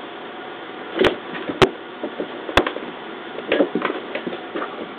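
Two cats scuffling and fighting: a few sharp knocks in the first half, then a quick flurry of softer thumps and scrapes.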